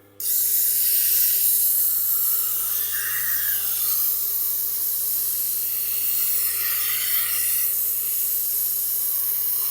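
Knife steel being ground against the running Tormek T8's wheel: a steady hissing scrape with a low motor hum underneath.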